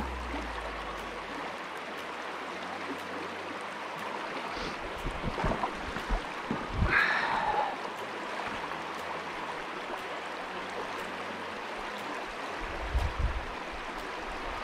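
River water flowing steadily past the bank, an even rushing noise. A few low thumps come around the middle and again near the end, and a short sound falling in pitch is heard about seven seconds in.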